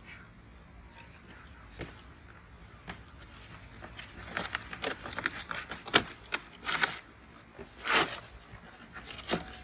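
Scissors slitting the packing tape along the seam of a cardboard box: an uneven run of short snips and scrapes of blade on tape and cardboard that starts about four seconds in, the sharpest near the middle and toward the end.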